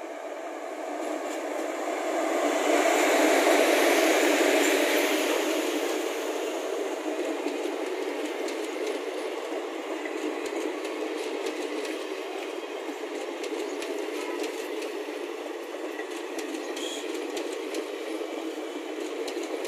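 Indian Railways electric locomotive hauling an express passenger train past at speed. Its rush swells to a peak a few seconds in, then the coaches roll by with a steady rushing and quick clicking of wheels over the rail joints.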